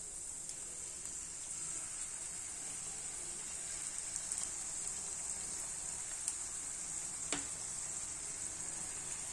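Gujiya pastries deep-frying in a pan of oil: a steady high sizzle with a few scattered crackles.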